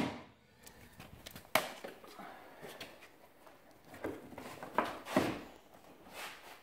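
Scattered handling noises: a few sharp knocks and light clicks as the van's plastic front bumper is gripped and pulled at by hand and a cordless drill is set down on the concrete floor.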